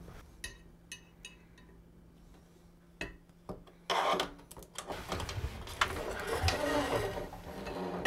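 Flexible faucet hoses rubbing and scraping as they are fed down through the mounting hole of a stainless steel sink, with scattered light clicks and knocks as the faucet is handled. The loudest rubbing comes about four seconds in, followed by more irregular rustling.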